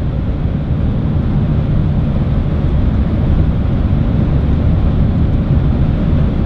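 Inside the cabin of an ABT-tuned Audi SQ7 with its V8 TDI diesel, cruising flat out at about 250 km/h: a steady, deep drone of engine, tyres and wind, even and unchanging.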